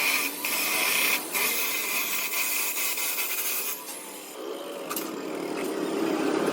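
Power tool or welder working old iron stock: a steady rasping hiss with a high whine, which drops away about four seconds in and gives way to lower scraping.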